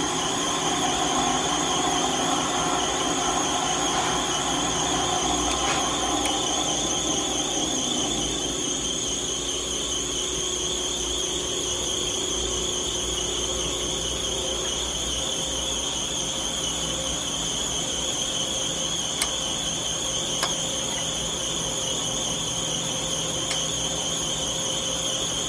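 Lathe running steadily while boring a rod, with a constant high whine. A lower hum fades away over the first ten seconds or so, and there are a couple of faint ticks.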